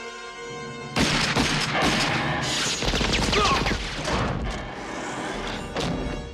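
Rapid, sustained gunfire starts suddenly about a second in and keeps going, with booms mixed in, until it dies away near the end. Orchestral film score plays underneath and is heard alone at the start.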